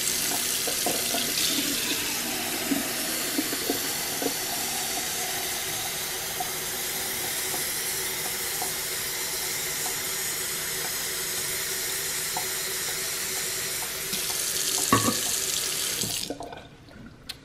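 Kitchen faucet running steadily, the stream splashing into the sink and filling a plastic measuring cup. A brief knock sounds near the end, then the tap is shut off.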